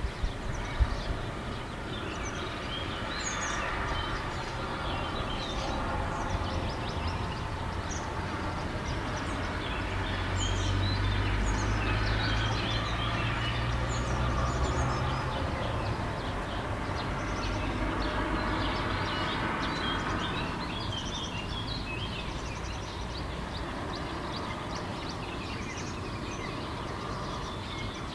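Small birds chirping continually while a vehicle's low rumble swells and fades, loudest in the middle. A couple of sharp knocks come right at the start.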